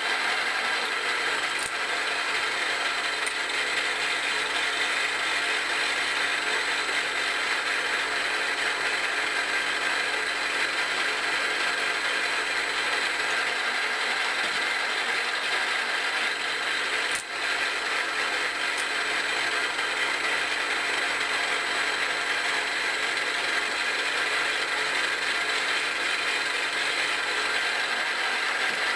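Milling machine spindle driving a Tapmatic 30X automatic reversing tapping head: a steady mechanical whir of spindle and tapping-head gearing as a form tap cuts and backs out of small threaded holes in stainless steel. There is one brief click and dip a little past the middle.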